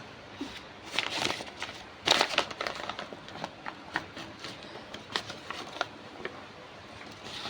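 Takeaway food wrapping crinkling and rustling as it is handled, in irregular short bursts that are loudest about one and two seconds in.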